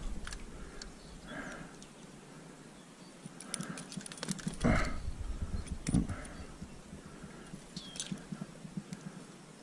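Faint splashes of stream water and small clicks of handled fishing gear as a trout is released by hand. They come as a few short, scattered sounds.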